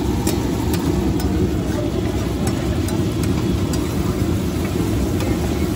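Mutton chaap bubbling and sizzling in butter and gravy on a large tawa over a steady low rumble, with a few light clicks of a spatula against the pan.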